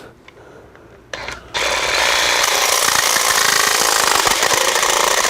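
Jigsaw fitted with a wood blade cutting through a metal door sweep, a steady loud buzzing cut that starts about a second and a half in after a brief blip.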